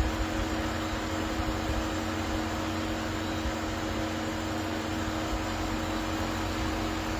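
Steady mechanical hum with hiss: a few constant low tones over an even noise and a low rumble, unchanging throughout.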